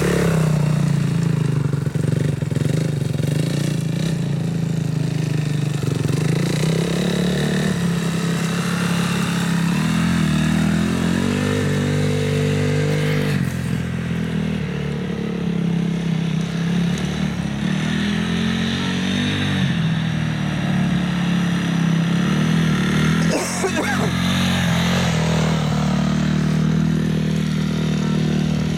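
Honda CRF250X dirt bike's single-cylinder four-stroke engine running steadily as it is ridden at low speed. The revs rise and fall a few times: about a third of the way in, past the middle, and again near the end.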